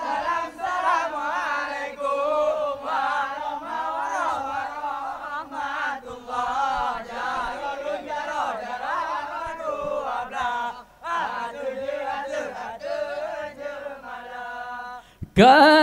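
Group chanting of a Rapai Geleng performance: voices sing a flowing, ornamented devotional chant in phrases, with a short break about 11 seconds in. Just before the end the singing comes in suddenly much louder.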